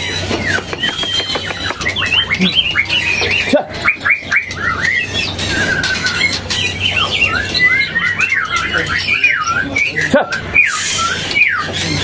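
Caged songbirds chirping and calling over one another: a dense mix of short rising and falling chirps and whistled notes, with a brief trill about six seconds in.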